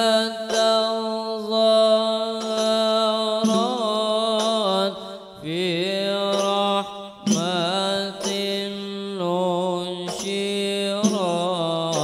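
A solo male voice singing an Arabic devotional qasidah (sholawat) into a microphone, long held notes ornamented with melismatic turns that bend up and down in pitch.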